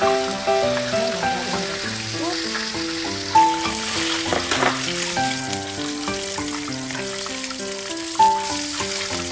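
Background music: a light melody of short, evenly paced notes over a low bass line, with a steady crackling hiss underneath.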